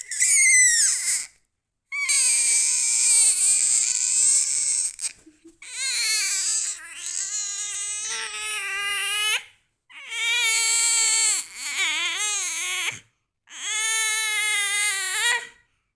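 A baby crying in five long, pitched wails, separated by short pauses for breath.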